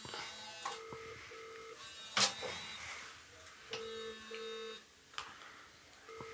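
A telephone ringing in the British double-ring pattern: pairs of short low tones repeating about every three seconds. A sharp clack comes about two seconds in.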